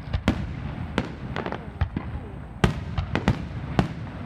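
Fireworks and firecrackers going off on all sides: a dozen or so sharp bangs at irregular intervals, over a steady low rumble of more distant explosions.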